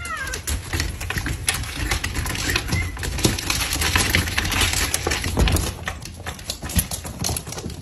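Rapid, dense clatter of many cats' claws and paws scrabbling against a wooden cabinet door and hardwood floor as the cats push out, thinning near the end.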